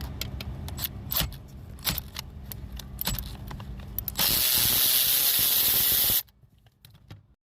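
Scattered clicks and knocks of a tool being fitted, then about four seconds in a pneumatic air ratchet runs for about two seconds with a loud air hiss, backing out the T45 Torx bolt that joins the steering column, and cuts off suddenly.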